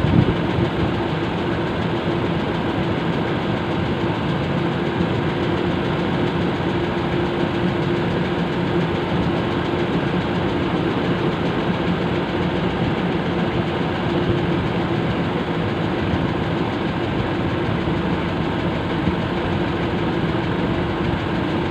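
Fishing boat's engine running steadily, an even drone with a constant hum that does not change.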